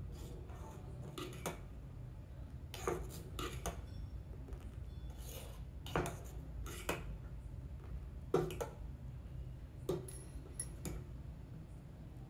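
A steel spoon stirring thick wheat-flour porridge in a stainless steel saucepan, knocking and scraping against the pot about a dozen times at irregular intervals, over a steady low hum.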